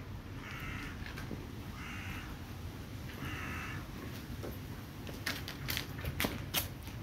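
A crow cawing three times, about a second and a half apart, each caw harsh and short. A few sharp clicks follow near the end.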